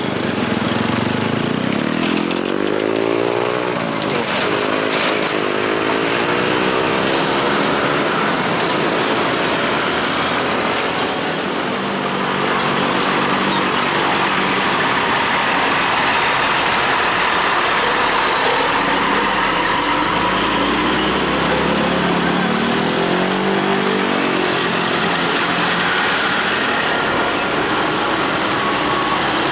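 Road traffic at a level crossing: small motorcycle and light-truck engines rev up and pull away a couple of times in the first few seconds and again near the end, over a steady traffic hum.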